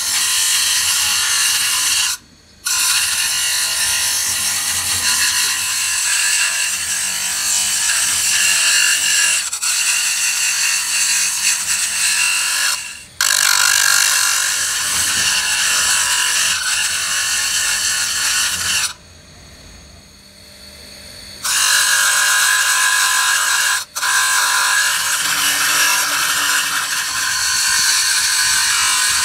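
Abrasive disc on a bench motor grinding a steel pinion gear: a steady, high-pitched grinding hiss of metal on the wheel. It breaks off briefly a couple of seconds in and again about halfway, with a longer, quieter lull about two-thirds through.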